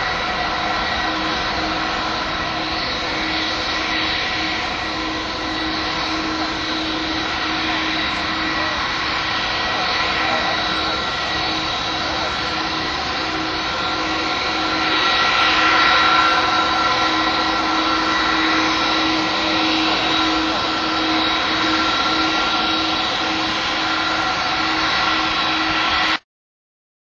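Airbus A320-214's CFM56 jet engines at takeoff power as the airliner rolls down the runway and lifts off: a steady roar with constant whining tones. It swells a little about halfway through and cuts off suddenly near the end.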